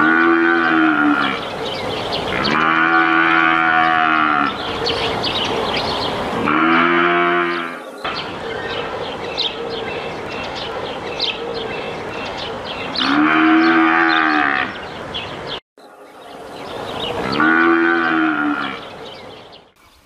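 Cape buffalo calling: five drawn-out, moo-like low calls, each one to two seconds long, with a steady background hiss between them.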